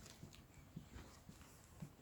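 Faint footsteps of a person walking, soft low thuds in a steady rhythm.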